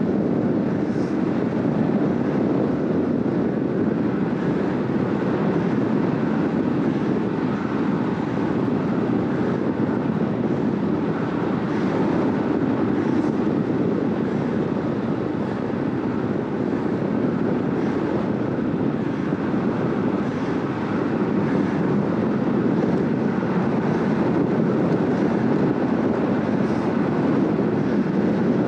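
Steady rush of wind over the bike-mounted camera's microphone, mixed with the tyres' hum on asphalt, from a road bike ridden at about 45 km/h.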